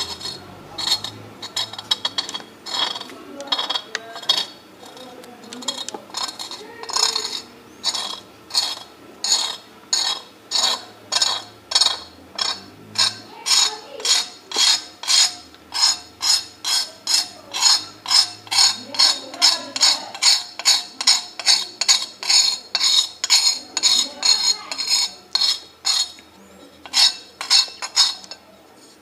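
Steel knife blade scraping ghee-lamp soot off a metal plate in short repeated strokes. The strokes are slow and uneven at first, then settle to about two or three a second, with a brief pause near the end.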